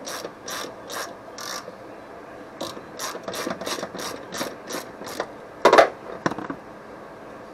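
Hand ratchet with a 13 mm socket clicking as it backs off the last nut on the front strut tower, the shock's top mount coming loose. The clicks come in two runs with a short pause between them, then a louder clunk near the end.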